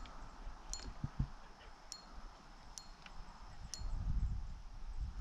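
Spinning reel ticking as a hooked fish is reeled in: short, sharp metallic ticks with a slight ring, about one a second.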